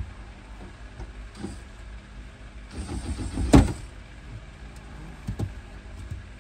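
Scattered knocks and handling clatter of parts being worked by hand inside a car, with a louder rattle and one sharp bang near the middle, over a steady low hum.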